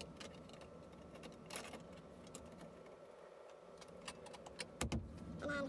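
Plastic door trim being pushed and fitted onto the van's door frame by hand: faint rubbing and scattered light clicks, with a sharper click about one and a half seconds in and a couple of louder knocks near the end as it seats.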